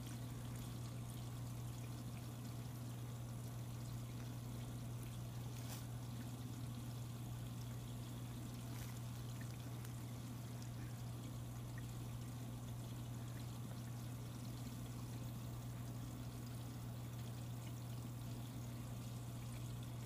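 Aquarium filter running: water trickling steadily over a steady low hum, with a few faint ticks.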